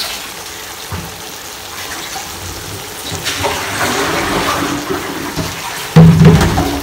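Creamy pasta sauce simmering and being stirred in a frying pan, a wet, watery sizzle, with a louder bump near the end.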